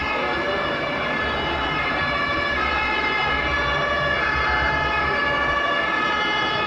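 Emergency siren of a radio-controlled model ambulance, sounding continuously as the model drives with its blue lights on.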